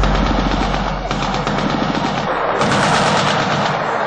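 Automatic gunfire, a dense run of rapid shots.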